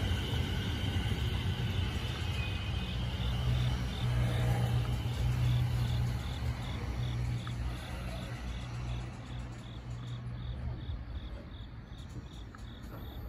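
JR East E217 series electric commuter trains: one pulls away while another runs in and slows to a stop, giving a low rumble of wheels and motors that fades out near the end. A faint high chirp repeats about twice a second underneath.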